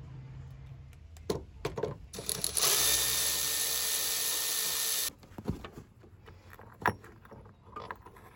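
Milwaukee cordless electric ratchet spinning a Land Cruiser body mount nut off for about three seconds, starting about two seconds in and stopping abruptly; the anti-seized nut comes off freely. A few metal clicks and clinks before and after.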